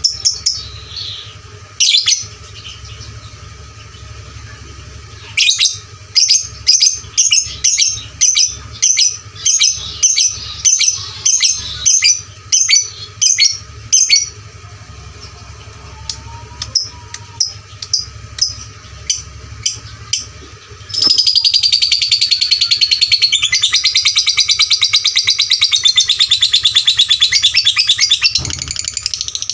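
Lovebird singing loudly: sharp, high chirps, at first single and then about two a second in a ticking run, breaking after a pause about two-thirds of the way through into a long, unbroken rapid chatter (the 'ngekek').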